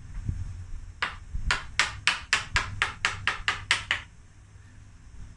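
A quick run of about a dozen sharp hammer blows, roughly four a second, knocking broken dead wood out of an elm bonsai's trunk.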